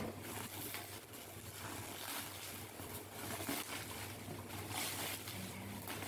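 Thick plastic packaging crinkling and rustling as hands pull and tear at it, over a low steady hum.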